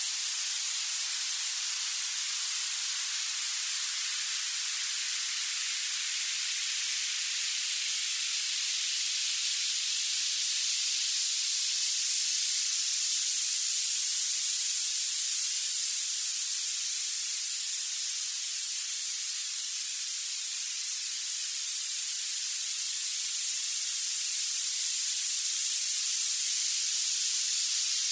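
Violet noise: a steady, high-pitched hiss with no low end, strongest at the very top of the range.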